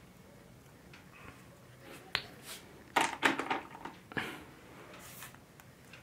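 A few sharp plastic clicks and a brief clattering rustle as a ball-and-stick molecular model is handled and turned: one click about two seconds in, a quick cluster about a second later, and one more near the four-second mark.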